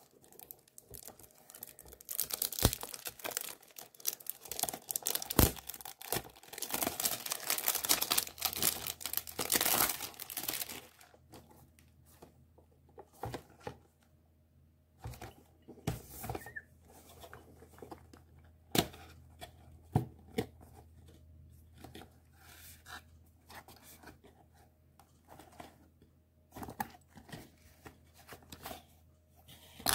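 Clear plastic shrink-wrap being torn and crinkled off a perfume box, a dense crackling for the first ten seconds or so. After that come scattered short rustles and taps as the cardboard box is handled and its flap opened.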